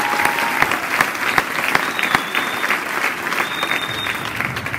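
Audience clapping and applauding, with two high held whistles of approval about halfway through.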